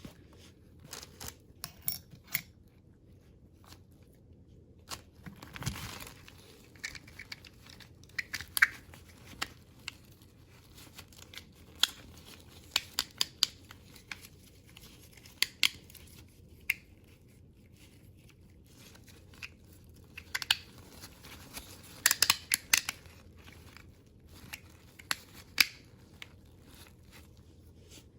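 Small parts being handled during disassembly and cleaning of an oil filter: irregular light clicks and taps, with brief rustling or scraping about six seconds in and a cluster of sharper clicks near the end.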